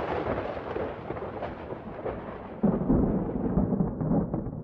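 Thunder sound effect: rolling thunder that slowly dies away, with a second, heavier rumble about two and a half seconds in.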